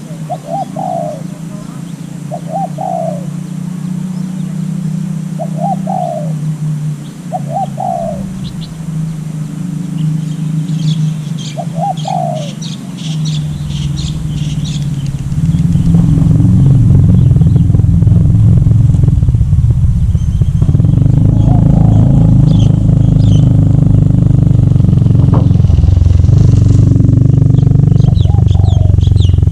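A dove cooing in short repeated phrases, with small birds chirping higher up; about halfway through a loud steady low rumble builds up and drowns out the birds.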